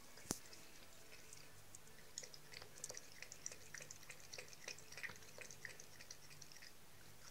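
Bengal cat lapping water from a small cup: faint, quick wet ticks at about four a second. A single sharp click comes about a third of a second in.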